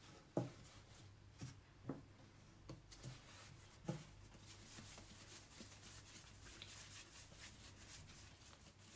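Hands shaping a ball of bread dough on a countertop: about five faint soft pats as the dough is folded and pressed down in the first four seconds, then quiet rubbing as it is rounded between the palms.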